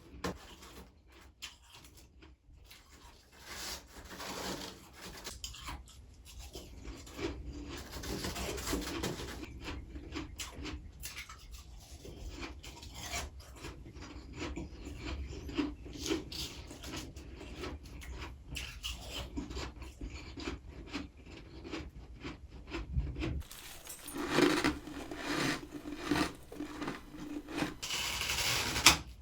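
Close-up rasping and crunching of freezer frost as it is scraped up and chewed. Near the end the crunching turns louder and heavier: frost being bitten.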